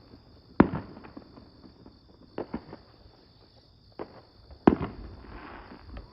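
Fireworks going off: about five sharp bangs, with the two loudest about half a second in and near five seconds in, and a short noisy tail after the last one.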